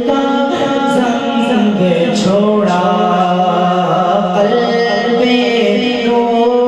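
A man singing a naat, the devotional Urdu/Punjabi praise song for the Prophet, into a microphone, in long drawn-out notes that glide between pitches.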